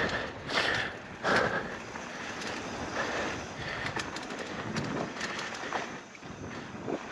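Polygon Siskiu N9 mountain bike riding down a dirt trail: tyres rolling and scrubbing over the ground, with chain and frame rattling in quick clicks and wind on the microphone. A few louder surges come in the first second and a half.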